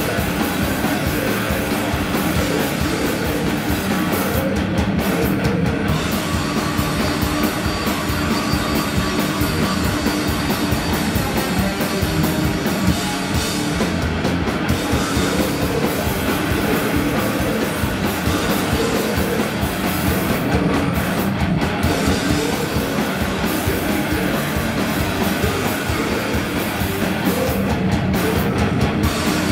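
A heavy metal band playing live: distorted electric guitars and a drum kit, loud and dense without a break.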